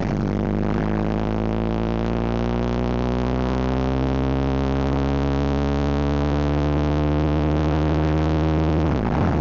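A sustained electronic synthesizer drone over a concert sound system: one deep held note with a stack of overtones, steady for about nine seconds, breaking off near the end as the music moves on.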